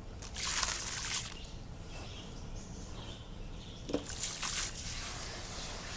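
Wet concrete pouring and splashing into water, in a burst about a second long near the start and a shorter one about four seconds in.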